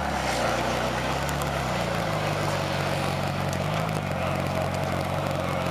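Ferrari California's V8 engine running at low revs as the car pulls slowly away. The engine note changes about two seconds in as it moves off.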